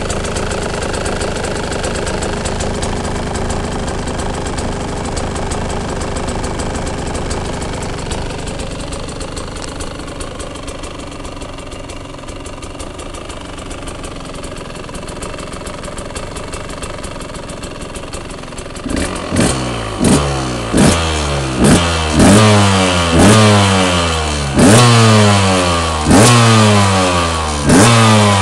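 KTM 125 EXC (2007) single-cylinder two-stroke engine on its stock exhaust, idling steadily, then blipped about once a second from about two-thirds of the way in, each rev rising sharply and dropping straight back to idle.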